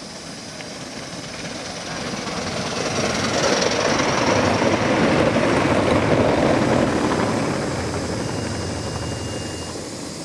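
Gauge 1 model train running past close by on the near track. Its running noise builds to a peak about halfway through and then fades away.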